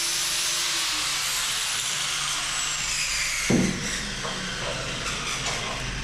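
Handheld power tool used for grinding fiberglass, its whine falling steadily in pitch as it spins down, over a steady hiss. A single low thump about three and a half seconds in, followed by a few light knocks.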